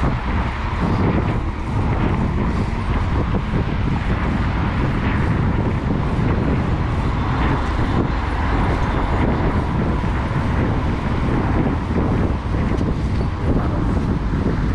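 Steady wind rumble on the microphone of a body- or bike-mounted action camera while riding a bicycle, with road traffic in the background.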